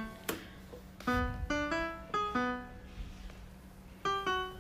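Background music: a light melody of short, evenly stepping notes that pauses for about a second and a half past the middle, then resumes near the end.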